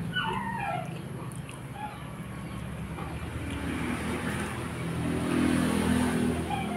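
A dog whimpering, a few high falling whines in the first second, over a steady low hum. A motor vehicle's engine swells and fades about five to six seconds in.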